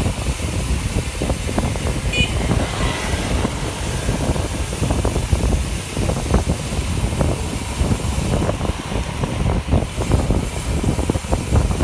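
Wind buffeting the microphone of a camera riding along on a moving bicycle: a steady low rumble broken by irregular crackles, with a brief high chirp about two seconds in.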